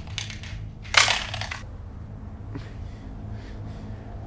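A sharp, breathy exhale lasting about half a second, about a second in, followed by a few faint rustles, over a steady low electrical hum.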